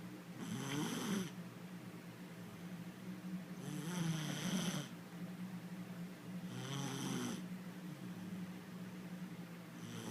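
A little girl snoring in her sleep, one rasping snore about every three seconds, three full snores with a fourth starting at the end, over a steady low hum.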